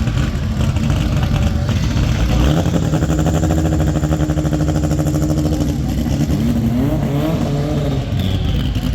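Drag race car engine held at a steady high pitch for about three seconds, then revving up with a rising pitch, over constant engine noise from the track.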